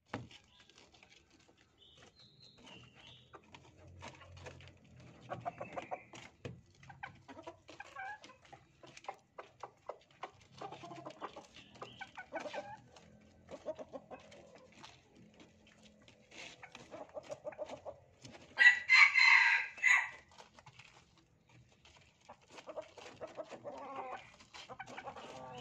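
Red junglefowl clucking in short runs, with one loud crow of about two seconds about three-quarters of the way through.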